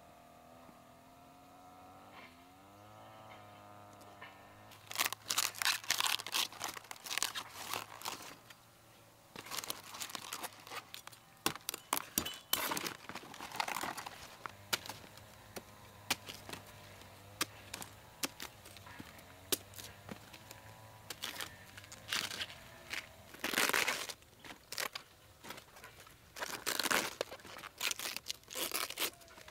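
Crisp crunching and tearing as cabbage heads are cut from their stalks with a machete and their outer leaves are snapped and stripped off. It comes in repeated bursts a second or two long.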